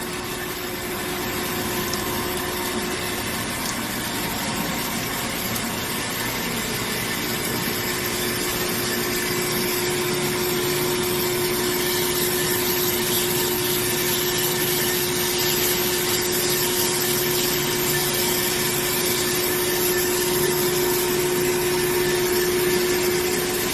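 HEM H90-A automatic horizontal band saw running with a steady mechanical hum. A steady tone fades briefly a few seconds in and then returns stronger, and the overall level builds slowly.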